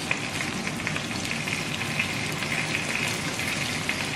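Meat frying in a hot pan: a steady crackling sizzle of spitting fat.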